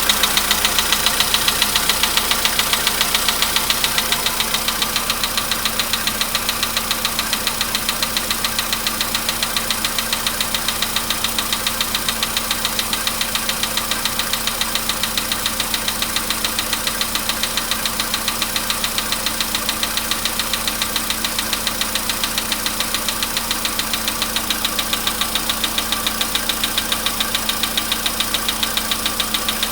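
Volkswagen Polo Sedan engine idling after a cold start with a fast, even, anvil-like metallic knock. The owner says the knock in the engine is getting worse.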